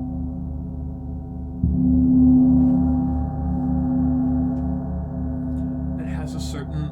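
Paiste No. 0 bronze gong ringing with a very dark, loose tone and a slow even pulsing in its low notes. It is struck again about one and a half seconds in and swells louder, opening up, before slowly settling.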